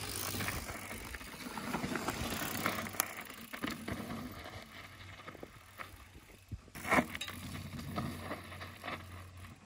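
Mountain bike rolling down a rock ridge, its tyres crunching and scraping over rock and loose grit, fading as it moves away. There is a sharp knock about seven seconds in.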